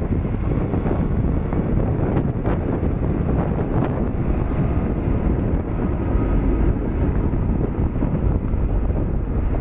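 Airbus A330-200 airliner's twin jet engines running as it rolls slowly along the runway, a steady low rumble with a faint whine midway, buffeted by wind on the microphone.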